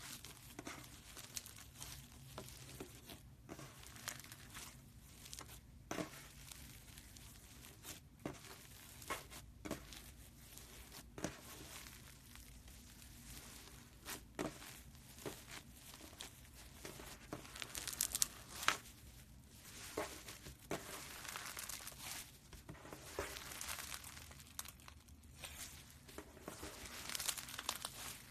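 Floam, slime packed with small foam beads, crackling and crunching as hands press, knead and squeeze it. The crackles come irregularly and grow denser and louder in the second half.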